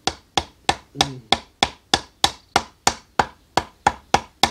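Repeated knocking of a wooden bar tapping down on the end of a painted telescopic fishing-rod section, about three even strikes a second, to drive a line guide ring onto it. The ring is smaller than the painted rod, a tight fit that scrapes off the paint.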